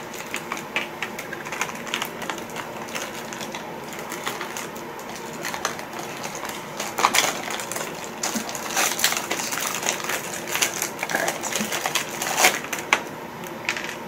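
Gloved hands peeling open and handling the wrappers of sterile medical supplies: irregular crinkling of paper-and-plastic peel packs with small plastic clicks, and a few louder crackles about seven and twelve seconds in.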